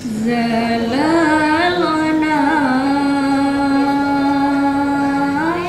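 A woman singing solo into a microphone, unaccompanied: the opening vocal line of a banjari group. She sings ornamented runs for the first few seconds, then one long held note that rises at the end.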